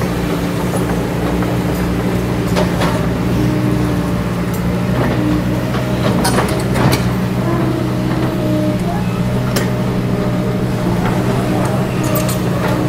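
Kobelco SK200 crawler excavator's diesel engine running steadily under load as the machine swings a loaded bucket, with a few sharp knocks along the way.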